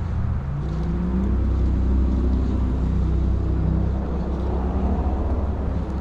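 A road vehicle driving past, its engine giving a low rumble that rises in pitch over the first couple of seconds as it speeds up, then holds steady.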